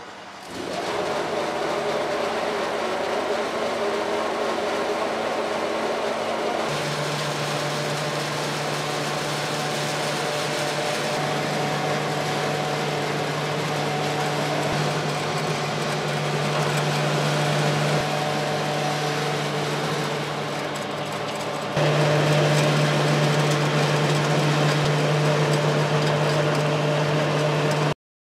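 Small electric flat-die wood pellet mill running under load, its motor and rollers pressing sawdust through the die to make pellets: a steady mechanical hum. It starts about half a second in, a stronger low hum joins about seven seconds in, and it gets louder about 22 seconds in before cutting off.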